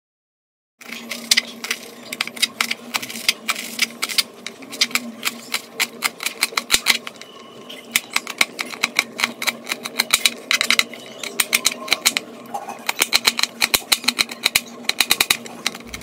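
Kitchen knife chopping banana flower (mocha) into fine pieces: a quick, uneven run of sharp knocks, several a second, starting about a second in.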